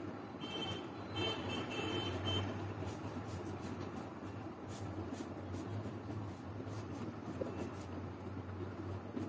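Felt-tip marker rubbing on paper as a picture is coloured in, faint short scratches over a steady low rumble and hum.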